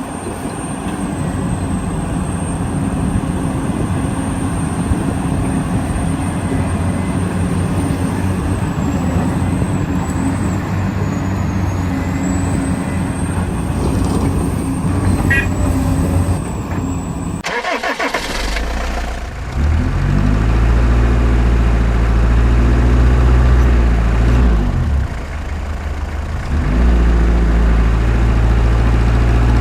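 Running sound of RC construction machines: for the first half a busy, rattly mechanical noise with a faint high whine that wavers in pitch, then an abrupt change about 18 s in to a steady low engine-like hum that steps up and down in pitch and dips briefly near the 25-second mark.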